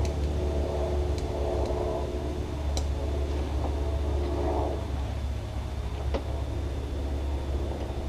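Steady low machine hum, with a few faint, light metallic clicks of pliers working small steel parts of a Daisy 880 BB gun.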